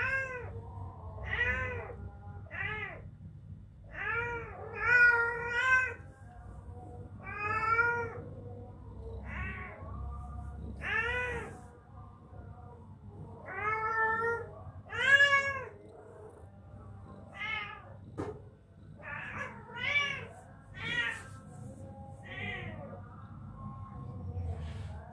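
Two-week-old kittens mewing over and over: short, high calls, each rising then falling in pitch, coming one after another with brief gaps.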